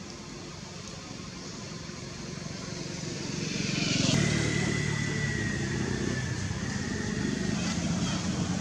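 A motor vehicle's engine growing louder over the first four seconds and then running on steadily, with a thin high whine that slowly drops in pitch.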